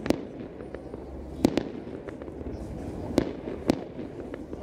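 Aerial fireworks bursting: several sharp bangs spread through, two of them in quick succession, with fainter pops and crackling between them.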